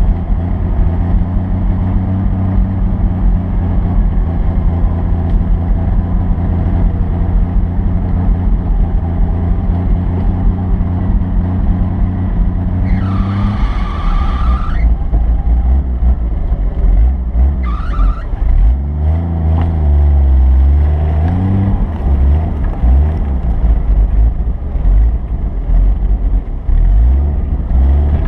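A vehicle engine runs steadily, then revs up and down about two-thirds of the way through. A brief higher-pitched whine comes in about halfway.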